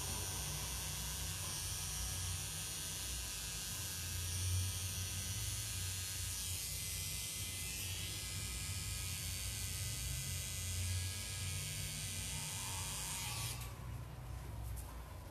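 Tattoo machine buzzing steadily as the needle fills in black on skin, cutting out near the end.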